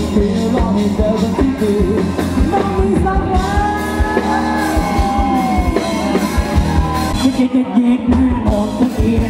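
Live rock band playing through a PA: a vocalist singing over electric guitar, bass and a steady drum beat. The drums drop out for about a second near the end before the band comes back in.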